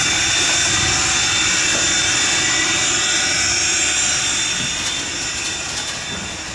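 Steady, loud hiss of steam from the 2-10-0 Decapod steam locomotive #90 as it moves slowly, growing quieter over the last couple of seconds.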